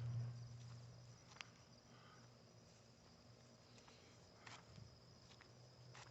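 Near silence: a faint steady high-pitched tone with a few soft clicks, and a low hum that fades out about a second in.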